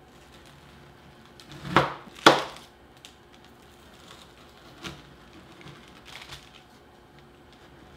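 Knife cutting down through a chilled slab of scotcheroos, a hard chocolate-butterscotch topping over a crisped-rice base: two loud cuts about two seconds in, half a second apart, then a few fainter ones.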